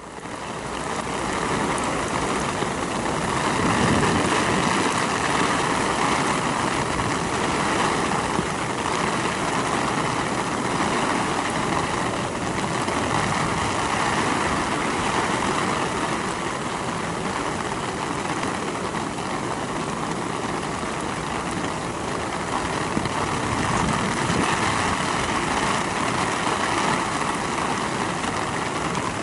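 Heavy rain falling steadily on wet ground and grass: an even hiss.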